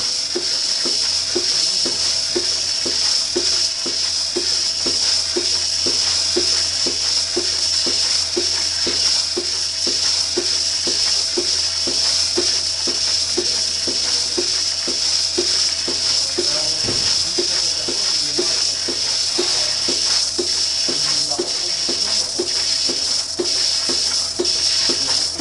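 Lely Astronaut 4 robotic milking machine milking a cow: a steady vacuum hiss, with the pulsators' even rhythmic pulsing nearly twice a second over a low steady hum.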